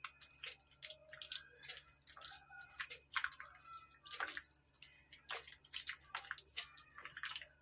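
A hand squishing and kneading chicken pieces in a thick, wet yogurt-and-spice marinade in a glass bowl: faint, irregular wet squelches.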